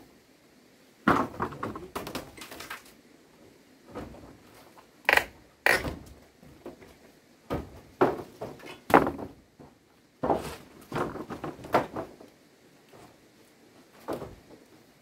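A series of irregular knocks and thuds, some single and some in quick clusters, as of things being struck, set down or handled.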